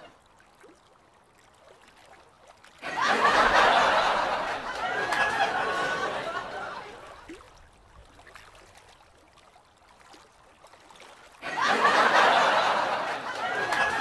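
Several people chattering and laughing. The voices start suddenly about three seconds in and fade away, then start suddenly again near the end.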